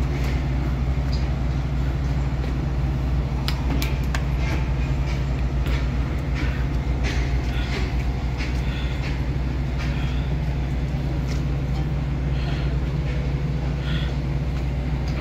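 A vehicle engine running steadily with a deep drone, with scattered knocks and rattles over it.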